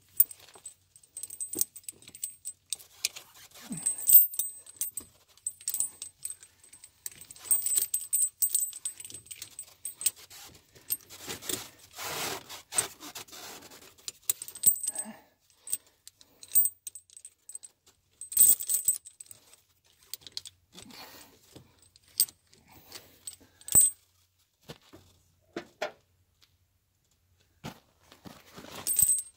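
Trygg studded steel tractor tire chains being handled and hooked together: heavy links clinking and rattling against each other in irregular bursts with short pauses, with a longer spell of rattling about twelve seconds in.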